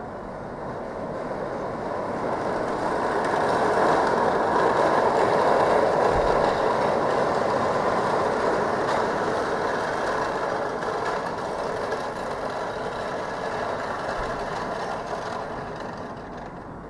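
A vehicle passing: a rushing noise with no clear pitch that swells over the first few seconds and slowly fades towards the end.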